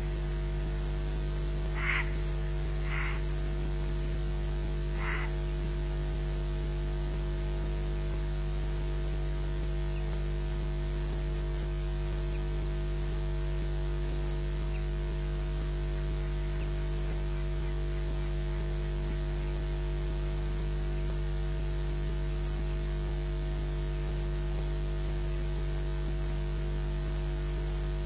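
Steady electrical mains hum with static hiss on the nest-camera audio feed. Three short bird calls come through about two, three and five seconds in.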